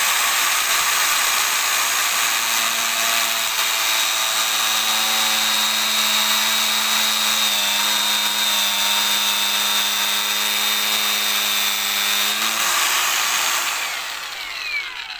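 Cordless Makita angle grinder spinning a disc of stacked sandpaper circles and cutting into a small wooden stick, with a steady high whine. A lower steady tone joins from about two seconds in to about twelve while the disc is in the wood. Near the end the grinder is switched off and winds down.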